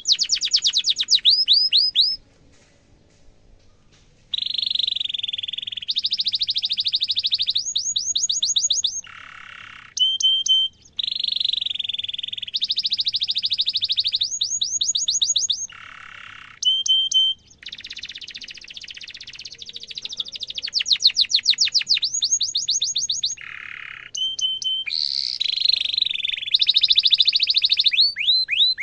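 Domestic canary singing a long, loud song of fast trills and runs of repeated down-sweeping whistles, in phrases of one to two seconds with a few lower rolling notes. The song pauses for about two seconds near the start.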